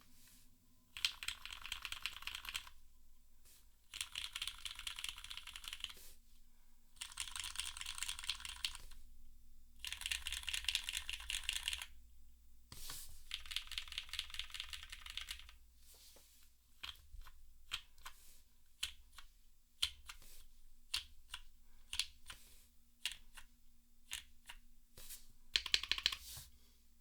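Typing on the alpha keys of a gasket-mounted Forever65 keyboard with a carbon fibre plate, lubed and filmed Cherry MX Black Hyperglide linear switches and GMK keycaps. The first half is fast runs of keystrokes, each about two seconds long with short pauses between them. After that come slower, separate key presses, then one more quick run near the end.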